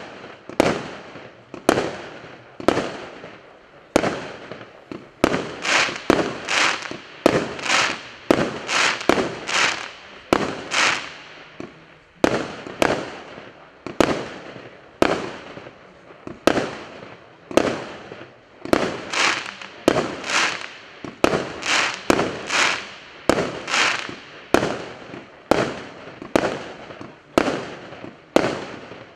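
A 48-shot, 0.8-inch firework cake firing shot after shot, roughly one or two sharp bangs a second. Each bang trails off in a fading hiss.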